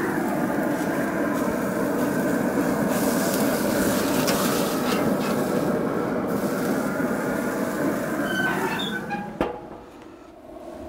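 Burger patty sizzling loudly on a cast-iron grill grate over a pellet-grill fire at about 550 degrees, with the lid open, as it is flipped with a spatula. The lid shuts with a sharp clank about nine seconds in and the sound drops to a low hum.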